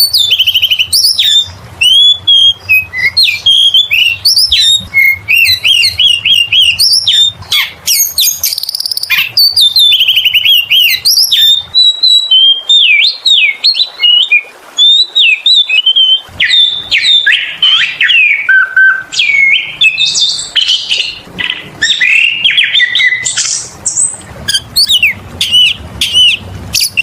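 Oriental magpie-robin (kacer) in full, nonstop song: a long run of varied, clear whistled notes sliding up and down, mixed with fast trills and a few sharp clicks, barely pausing.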